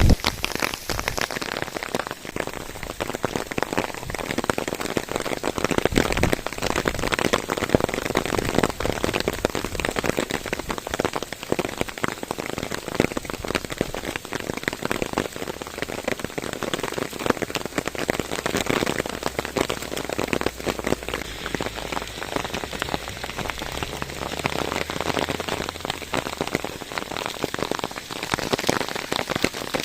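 Heavy rain falling steadily on a surface: a dense, even patter of drops.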